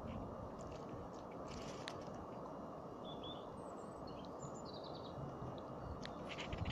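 Outdoor ambience: a steady, even rushing noise, with a few short, high bird chirps near the middle.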